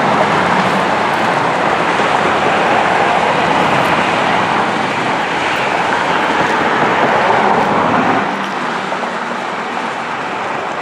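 Steady roadway traffic noise, a loud rushing of vehicles and tyres on a highway, easing a little about eight seconds in.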